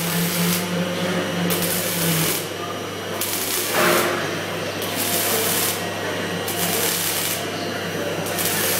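Robotic wire-feed (MIG) welding arc crackling and hissing as the torch runs a seam on sheet metal, its high hiss cutting in and out about once a second. A low hum stops about two seconds in, and a louder crackle comes near the middle.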